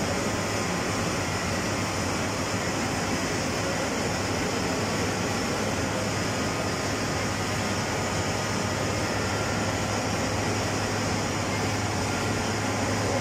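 Steady drone of hydropower generating machinery running in the powerhouse: a low, even hum under a broad rushing noise, with no change in pitch or level.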